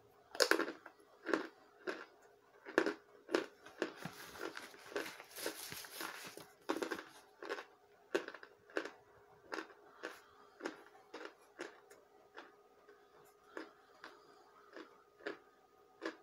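A person chewing a chunk of compressed corn starch: a run of short, sharp bites about two a second, loudest over the first several seconds and fainter towards the end.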